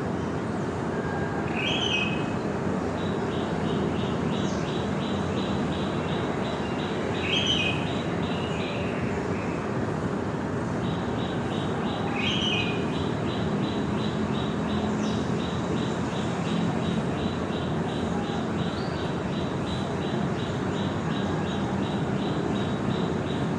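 Morning birds calling over a steady rushing background: a fast, even chirping pulse of about four notes a second that pauses briefly in the middle, and a few louder separate calls about five seconds apart.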